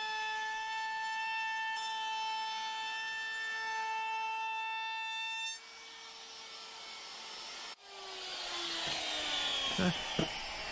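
DeWalt compact router running at high speed with a steady whine while it rounds over the edge of a plywood piece. The whine drops off about halfway through, and near the end the motor winds down with a falling pitch, with a few knocks.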